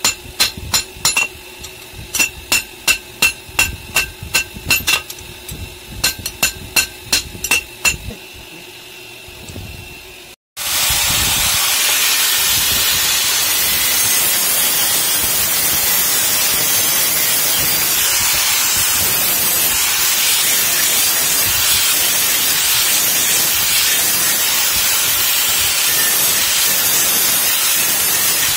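A hammer forges a red-hot steel chisel on a railway-rail anvil, with ringing blows about three a second in bursts with short pauses, for the first eight seconds. After a moment of silence, an angle grinder grinds the chisel's point with a steady, even hiss for the rest of the time.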